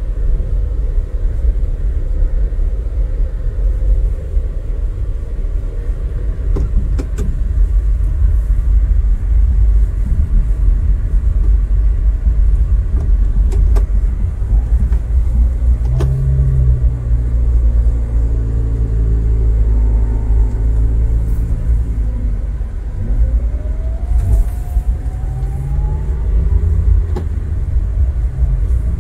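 Car engine and road rumble heard from inside the cabin while driving a narrow, rough lane. The engine note steps up and holds steady about halfway through as the car climbs, with a rising whine near the end.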